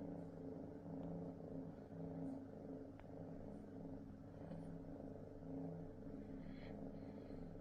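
Kitten purring softly, a low rumbling rhythm that swells and fades with each breath.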